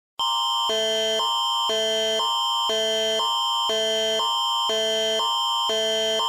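Canadian Alerting Attention Signal (the Alert Ready tone): a higher chord and a lower chord of steady tones trading places about twice a second over one constant high tone. It starts suddenly from silence and marks the start of an emergency alert.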